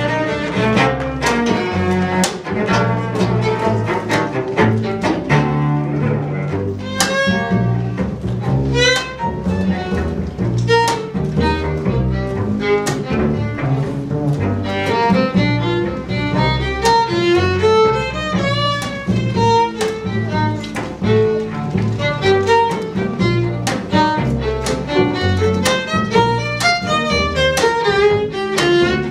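A string quartet of violin, viola, cello and double bass playing an instrumental piece: a steady pulse of short low notes from cello and bass under a quick melody of short notes that climbs and falls.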